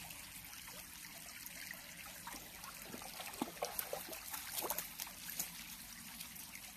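Shallow creek trickling over stones, with light splashes from a small dog wading through the water around the middle.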